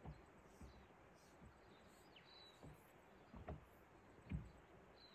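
Near silence: faint outdoor stillness broken by a few soft, low thumps and a faint, short bird chirp about halfway through.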